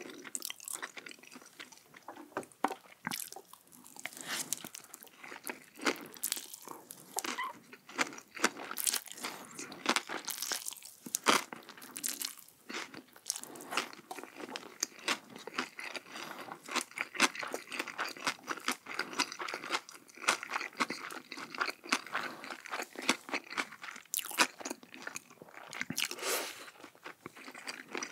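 Crunchy food bitten and chewed close to the microphone: a dense run of sharp, crisp crunches.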